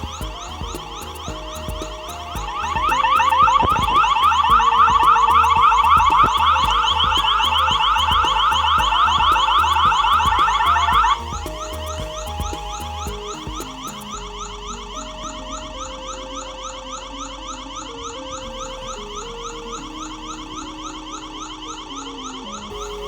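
Electronic siren of a Wyze security camera sounding a fast, repeating rising yelp, several sweeps a second. It swells loud about two and a half seconds in, then drops sharply to a quieter level about eleven seconds in and keeps sounding.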